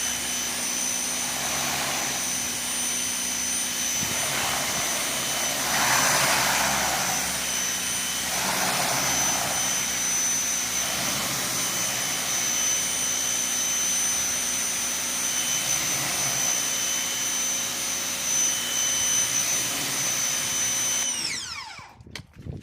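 Ryobi 2000 psi electric pressure washer running: a steady high motor-and-pump whine with the hiss of the jet spray, swelling and easing several times as the spray plays over the surface. Near the end the whine glides down and stops as the motor winds down.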